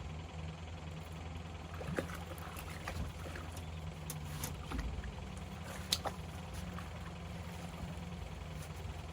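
Steady low hum of a boat motor, with a few scattered sharp clicks and knocks on the boat, the loudest about six seconds in.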